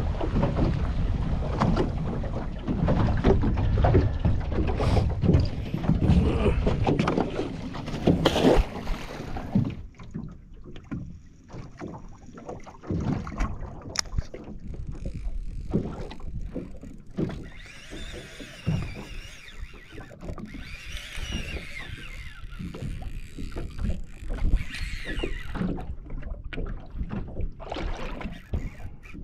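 Water slapping against a small fishing boat's hull, with wind on the microphone and scattered knocks. It is loudest for the first ten seconds or so, then quieter, with a soft hiss and clicks.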